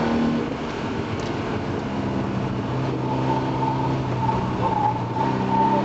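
Triumph rally car's engine heard from inside the cabin while driving a course: the engine note drops away about half a second in, settles into a steady low note from about three seconds, and picks up again near the end, with a thin high whine over it in the second half.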